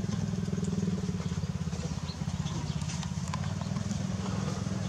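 A small engine running steadily, a low even hum with a fast pulse.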